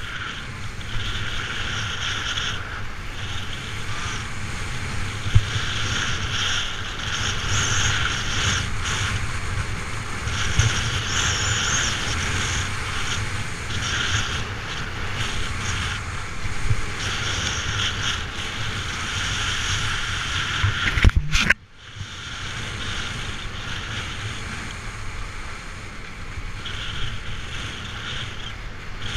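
Wind buffeting a body-worn action camera's microphone during a downhill ski run, under the hiss and scrape of skis on hard-packed snow that swells and fades every second or two with the turns. About two-thirds of the way through there is a sharp knock, then the sound drops out for a moment.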